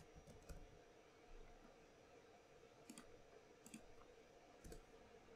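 Near silence broken by a few faint, short clicks of a computer mouse and keyboard.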